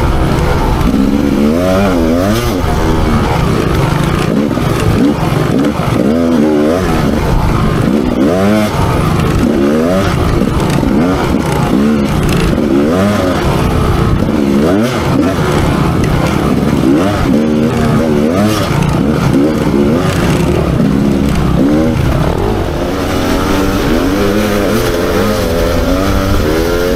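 Rieju MR300 two-stroke enduro motorcycle engine revving up and easing off again and again as it is ridden, its pitch rising and falling every second or two.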